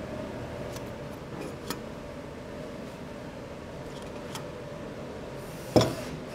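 Steady workshop hum with a few faint clicks from handling a cast organ-metal sheet and a dial thickness gauge, then one sharp knock near the end.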